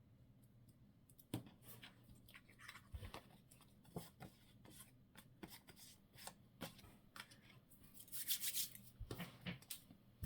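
Paper and card being handled on a craft table: scattered small crinkles, taps and clicks, with a louder papery rustle about eight seconds in.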